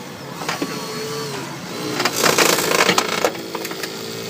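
Hydraulic rescue spreader forcing apart a car's front fender and door: sheet metal crunching and cracking, loudest about two to three seconds in, with a faint whine that rises and falls in pitch.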